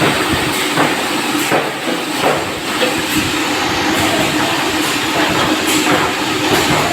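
Sawmill machinery running: a steady hum under a loud hiss, with irregular knocks and clatter.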